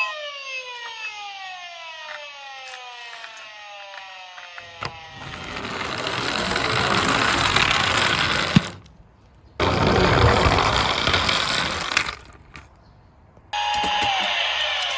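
Toy police car siren sounding with a falling pitch for the first few seconds. Then a loud rushing noise builds and cuts off suddenly twice, about nine and twelve seconds in, and the siren's wail comes back near the end.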